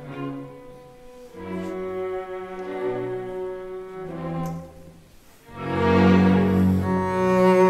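String orchestra playing held chords in a classical piece. About five seconds in the sound dies away briefly, then swells back in louder.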